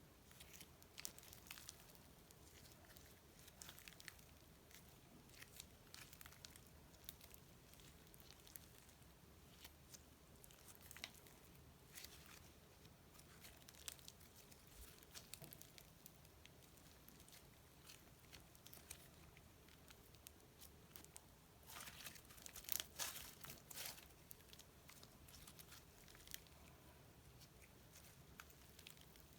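Slime being worked by hand: faint, scattered sticky crackles and small pops, with a denser run of crackling about three-quarters of the way through.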